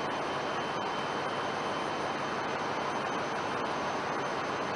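Steady, even hiss with a few faint high steady whines in it. No clicks or knocks from the wrench can be picked out.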